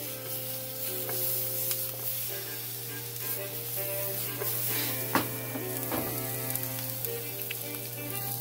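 Strips of bell pepper and green vegetables sizzling in a hot skillet over a high gas flame as the pan is moved and stirred, with a sharp knock a little past halfway and a second about a second later.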